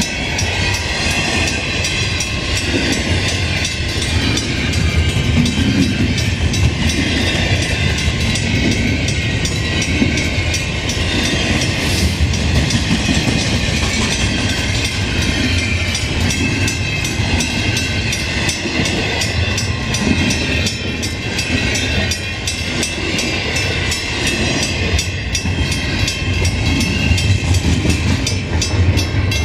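Canadian Pacific double-stack container freight train passing at speed over a level crossing, its cars' wheels running steadily on the rails.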